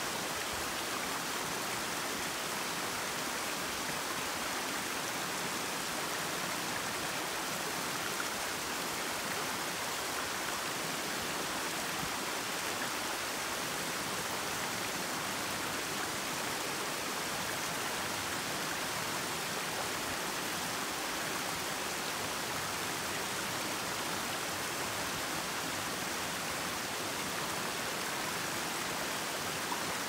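Small rocky waterfall splashing and cascading over stones: a steady, even hiss of falling water, bright rather than deep, with no change throughout.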